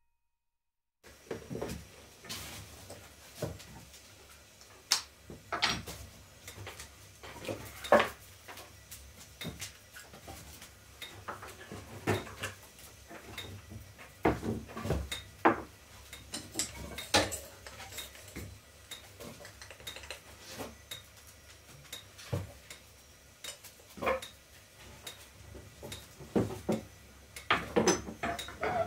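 Kitchen utensil clinking and knocking against a mixing bowl as food is stirred and mixed by hand: irregular clinks starting about a second in.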